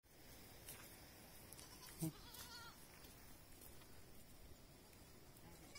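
Goat kid bleating about two seconds in: one short call followed by a brief wavering one. Faint scattered ticks are heard around it.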